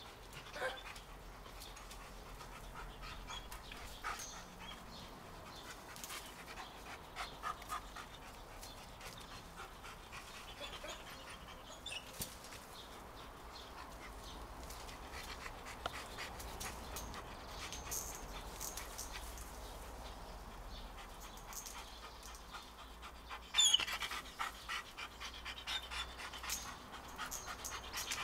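A dog panting quietly, with scattered small clicks and rustles, and one short louder sound about 23 seconds in.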